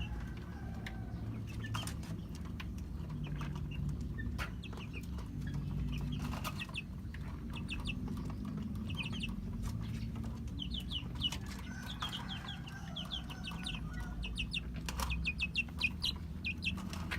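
Young chickens, nearly two months old, cheeping and clucking in quick runs of short high calls, with wings flapping and scattered knocks as a bird is handled.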